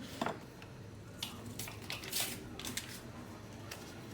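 Scattered light clinks and short scrapes of kitchen utensils against a mixing bowl, with a slightly longer scrape about two seconds in.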